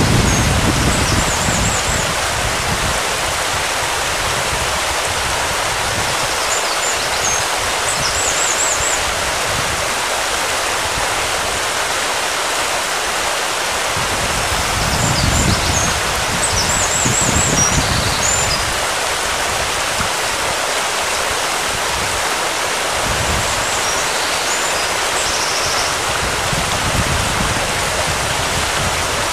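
Steady wash of sea water lapping against the rocks of the shore, with wind buffeting the microphone in low gusts a few times. Brief high chirps sound faintly about four times.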